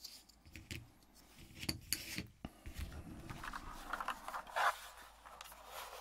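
Plastic keycaps being worked off a mechanical keyboard and handled: a few light plastic clicks, then a longer scraping and rubbing of plastic in the second half.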